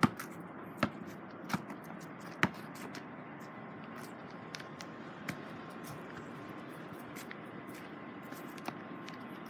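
Four sharp knocks in the first two and a half seconds, then steady outdoor background noise with a faint steady tone in the middle.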